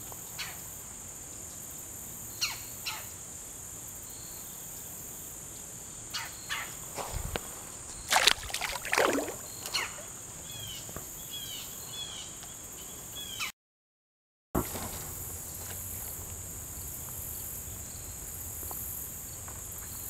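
A steady high-pitched chorus of crickets. It is broken by a few short knocks and rustles, the loudest about eight seconds in, and a bird chirps five or six times in quick succession a little later. The sound cuts out completely for about a second just past the middle.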